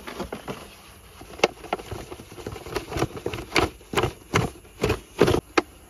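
Irregular crunching knocks and rustles in dry grass, roughly two a second, louder in the second half.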